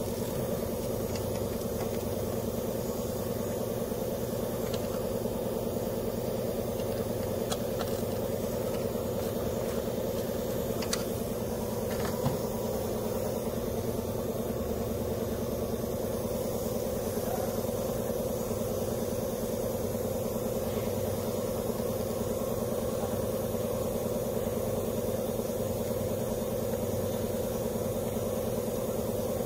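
Steady hum of an idling engine, with a few faint clicks.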